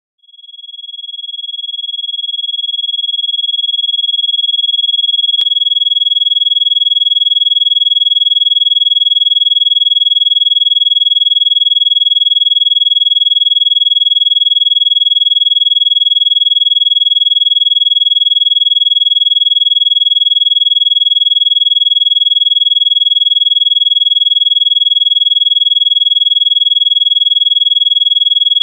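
A steady, high-pitched electronic sine tone, a Rife-frequency tone, fading in over the first few seconds and then holding at one pitch. A much fainter low tone runs beneath it.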